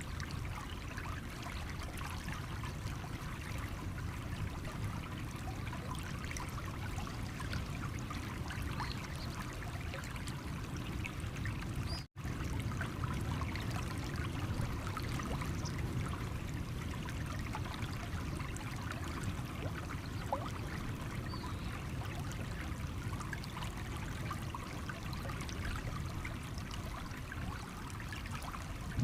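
Water of a stream flowing over stones, a steady trickle and splash, broken by a split-second dropout to silence about twelve seconds in.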